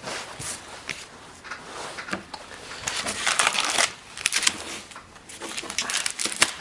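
Hockey trading cards being handled and slid through by hand, an irregular paper rustling that is loudest around the middle and ends in a quick run of card flicks.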